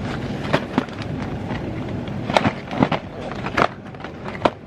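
Cardboard multipacks of yogurt cups being set down and shuffled in a metal shopping cart: about six sharp knocks and taps over a steady store hum.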